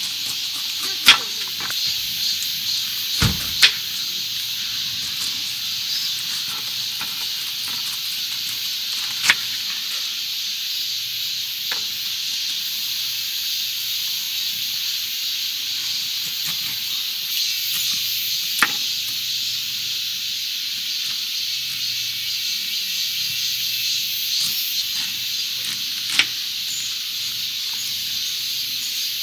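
Food sizzling steadily on a hot griddle pan, with a few sharp clicks of a cooking utensil against the pan.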